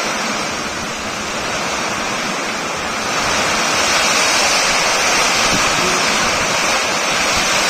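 Torrential rain pouring down in a rainstorm, a dense steady hiss of water, with wind gusting over the microphone; it grows louder about three seconds in.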